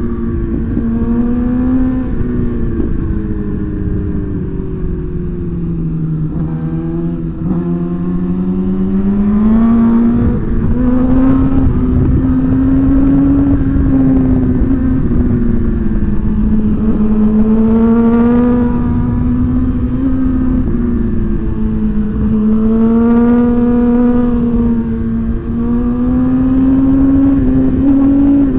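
Suzuki GSX-R1000's inline-four engine heard from on board while riding, its note rising and falling in pitch as the throttle is rolled on and off, over steady wind rumble.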